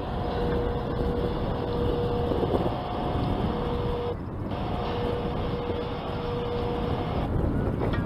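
A motor running steadily under wind noise, with a steady whine that drops out briefly about four seconds in and stops about seven seconds in.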